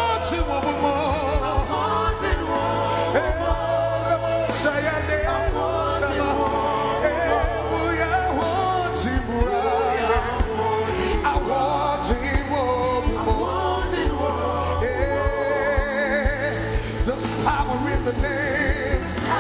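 Live gospel worship music: several voices singing with vibrato over a band, with a steady bass line and regular percussion hits.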